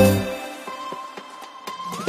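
Electronic background music in a breakdown: the beat fades out early and a single held synth note rings on, gliding upward near the end.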